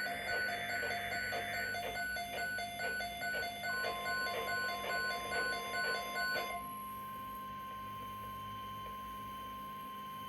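Midland WR-400DSP weather radio sounding its alert: repeated beeping, about two beeps a second, stopping about six and a half seconds in. From about four seconds in, the steady single-pitch NOAA Weather Radio warning alarm tone joins it and holds to the end. The alarm signals an incoming severe thunderstorm watch broadcast.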